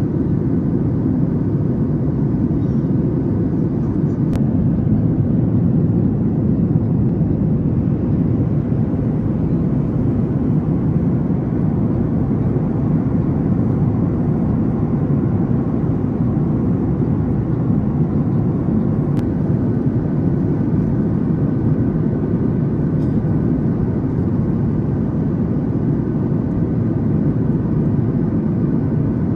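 Steady cabin noise of a Boeing 737 MAX 8 in flight, heard from a window seat over the wing: a low, even rush of airflow and CFM LEAP-1B engine noise.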